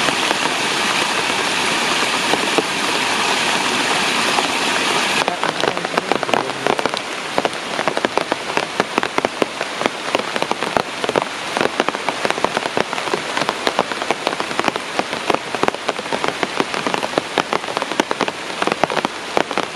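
A steady rushing hiss, then about five seconds in a sudden change to heavy rain pattering on a surface, a dense run of sharp drop hits.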